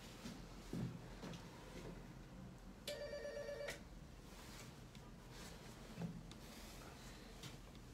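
Apartment-building door intercom panel sounding one short electronic ringing tone, just under a second long, about three seconds in: the call going through to flat 21 after its number was dialled on the keypad.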